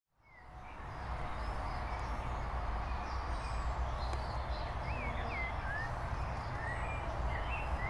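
Outdoor garden ambience fading in from silence during the first second: a steady low rumble and hiss with scattered bird calls, including a few short rising-and-falling chirps in the middle.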